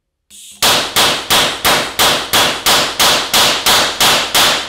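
3D-printed plastic pulsed detonation engine firing repeatedly on an oxygen-fed mixture: after a brief faint hiss, a rapid, even string of sharp bangs, about three a second, each cut short quickly.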